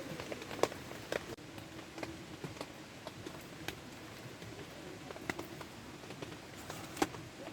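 Rain: water drops pattering at an irregular pace over a soft steady wash, with one louder drop near the end.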